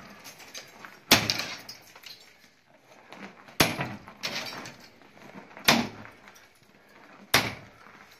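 Four heavy blows of a long-handled demolition tool against the braces of a fire-damaged ceiling, about two seconds apart, each followed by a short rattle of knocked-loose debris. The braces are being busted off.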